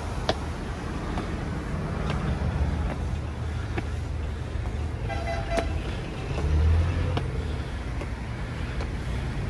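Road traffic rumbling under footsteps tapping on concrete steps. A vehicle horn gives one short toot about five seconds in, and a vehicle swells past a moment later.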